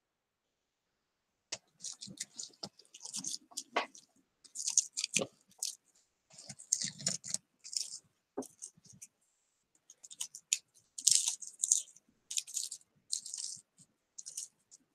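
A pointed metal tool scraping leftover pattern paper off a wood-burned wood round: short, irregular scratches with light clicks, starting about a second and a half in.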